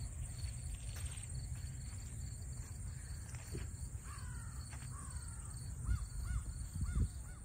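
Outdoor marsh ambience: wind rumbling on the microphone under a steady high-pitched insect buzz. Birds call in the second half, first two falling calls, then four short arching calls in quick succession near the end, with a couple of low bumps of wind or handling.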